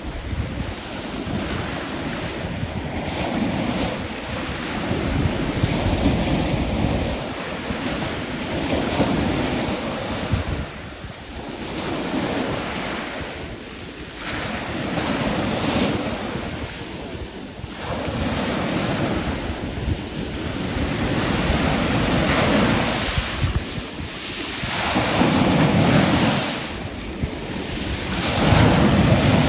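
Sea waves breaking and washing on the shore in repeated surges that swell and fade every few seconds.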